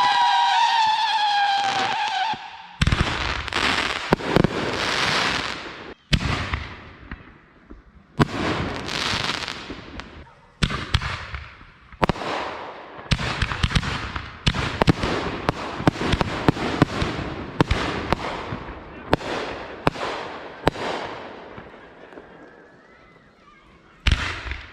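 Consumer fireworks going off: a whistling firework's descending whistle, then a long run of bangs and crackling bursts, some in quick clusters. The bursts die down near the end, and a few sharp bangs return right at the close.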